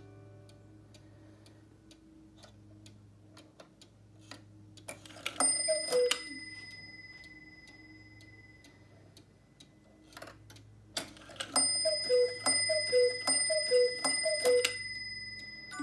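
Black Forest 8-day cuckoo clock: the music box tune dies away, then the movement ticks steadily. About five seconds in comes a single falling two-note cuckoo call with a ringing strike, and from about eleven seconds a run of about five cuckoo calls with strikes as the hands are advanced.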